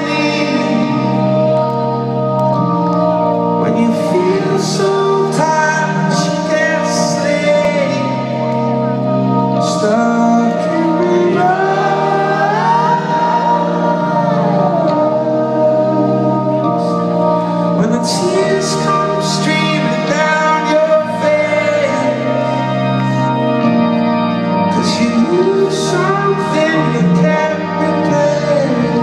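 Live band playing the organ intro of a ballad: slow, held organ chords that change every couple of seconds, with a voice singing over them. Heard from within a stadium audience.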